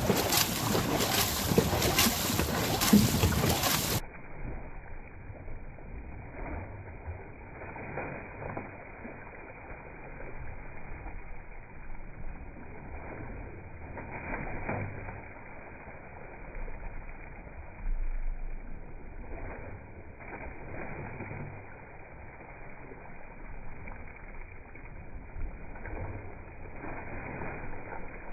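Dragon boat paddles stroking through the water, with water rushing along the hull and wind on the microphone. About four seconds in, the sound suddenly turns quieter and duller.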